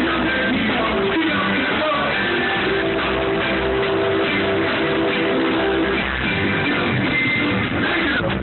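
Live reggae band music, loud and steady, with bass notes under sustained chords.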